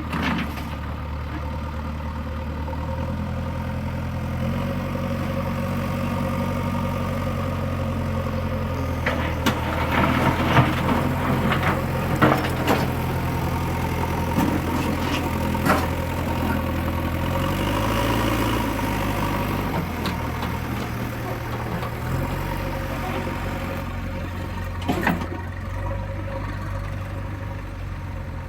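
Backhoe loader's diesel engine running steadily, its speed stepping up and then down, with scattered metallic clanks and knocks through the middle and once near the end.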